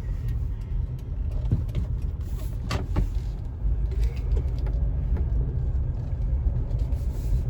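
Low rumble inside the cabin of a 1999 Lexus RX 300 rolling slowly, its 3.0-litre V6 running with a misfire on cylinder 6 that the owner blames on a bad ignition coil. A couple of brief clicks are heard, one about three seconds in.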